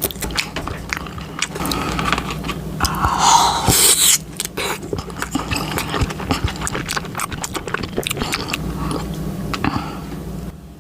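Close-miked chewing and biting of a dumpling dressed in cheese sauce: many short wet clicks and mouth noises, with one louder noisy stretch about three seconds in.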